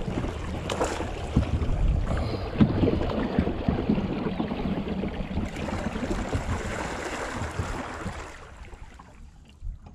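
River current rushing around a small boat drifting downstream: a steady rush of water with a low rumble underneath and a few knocks. It quietens about eight and a half seconds in.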